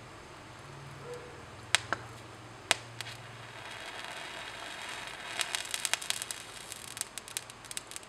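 Concentrated hypophosphorous acid decomposing on a hot plate in tiny explosions: three sharp pops a little under two seconds in and near three seconds, then a rising hiss with a fast run of small crackles through the second half.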